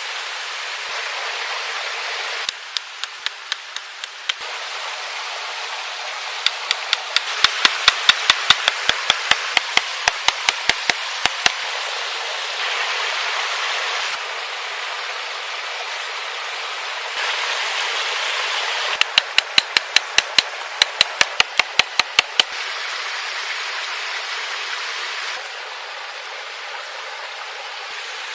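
Runs of quick, sharp knocks from a tool striking wood, about four a second, in three bursts: a short one early, a longer one, and another near the end. Under them is a steady rushing hiss that jumps up or down in level at several points.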